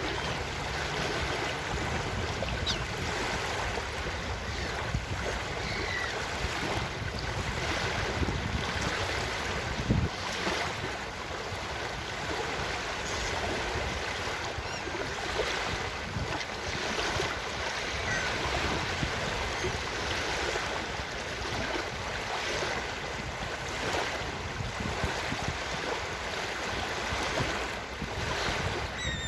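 Ocean surf washing steadily onto a beach, with wind on the microphone; a brief low thump about ten seconds in.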